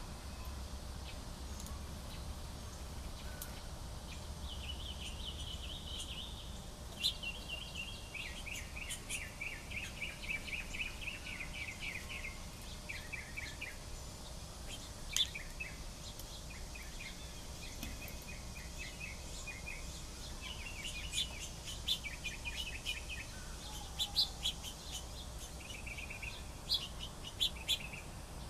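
Several small songbirds singing and chirping: rapid trilled phrases and sharp chirps, over a steady low background rumble.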